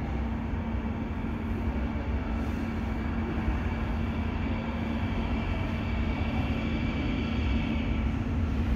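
Low rumble of an electric subway train approaching the station, slowly growing louder, with a faint whine in the middle and toward the end and a steady hum underneath.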